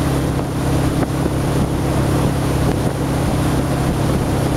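Motorboat engine running steadily as the boat tows wakeboarders, a constant low hum, with wind on the microphone and water rushing from the wake.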